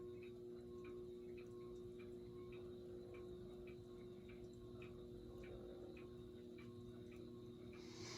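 SMC A52 ceiling fan running at medium speed: a faint steady motor hum with a regular light ticking, a few ticks a second.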